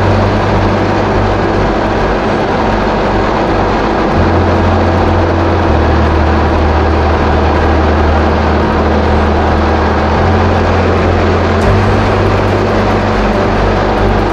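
A 2017 Kawasaki SX-R 1500 stand-up jet ski running steadily at speed on a river, its engine drone mixed with rushing wind and water.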